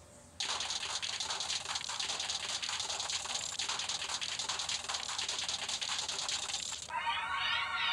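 A steady crackling hiss, like static or rain, that starts about half a second in and stops sharply about seven seconds in. It gives way to an electronic synth arpeggio whose notes run up and down in repeated zigzags.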